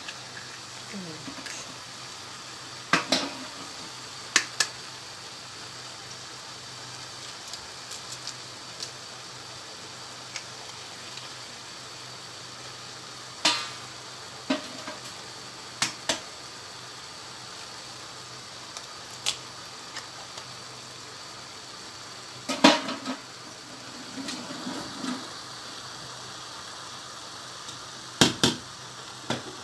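Spinach and onions sizzling steadily in a frying pan, broken by several sharp clicks of eggs being cracked against the pan and utensils knocking on it.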